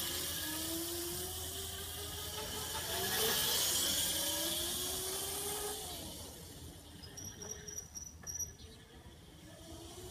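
Razor MX650 electric dirt bike motors whining as the bikes ride off, the whine rising and falling in pitch with speed, with a steady hiss over it. The sound fades about six seconds in as the bikes move away.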